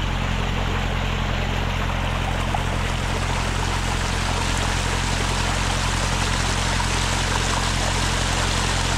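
Water cascading over a small rock ledge, a continuous even rushing splash, with a steady low hum underneath.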